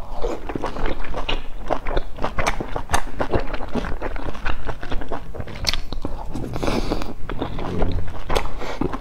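Close-miked chewing and wet mouth sounds of eating a steamed bun with chive-and-egg filling, with many quick smacking clicks.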